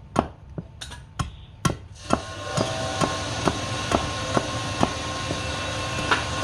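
Sharp knocks repeating evenly about twice a second, joined about two seconds in by a steady machine-like hum.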